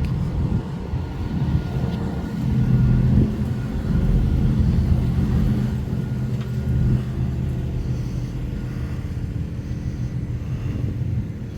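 A car engine running close by, growing louder a few seconds in and then fading, as a vehicle moves through the parking lot.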